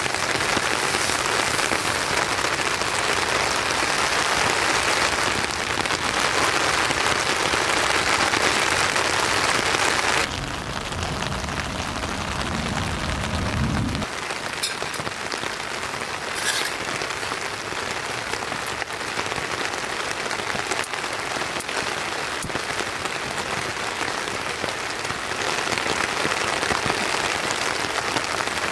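Rain pattering steadily on a nylon tent fly, heard from inside the tent. Heavier for about the first ten seconds, then softer after a sudden drop, with a brief low rumble and two short clicks in the middle.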